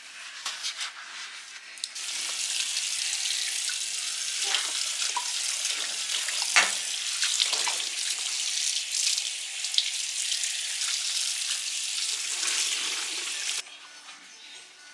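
Kitchen faucet running into the sink, turned on about two seconds in and shut off abruptly near the end, with a few clinks in the sink while it runs.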